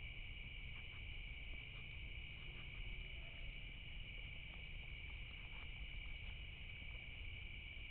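Steady chorus of night insects such as crickets, a continuous high trill that does not change, over a low rumble, with a few faint ticks.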